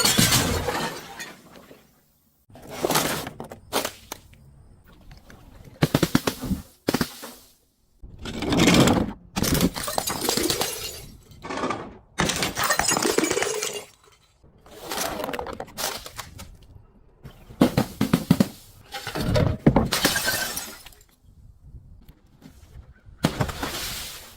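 Repeated crunching and breaking as brittle objects are crushed, in about a dozen separate bursts with short pauses between them.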